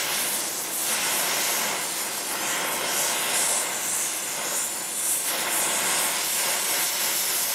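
Gas welding torch flame hissing steadily as it welds a steel frame tube with a filler rod.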